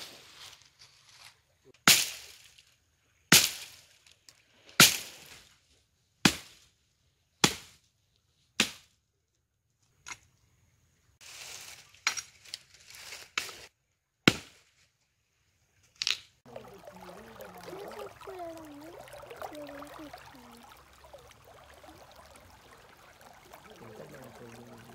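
Dry branches chopped with a hatchet and snapped by hand: sharp, loud wood cracks about one every second and a half, then a quicker run of snaps. After about 16 seconds they give way to quieter rustling and scraping of hands digging in soil.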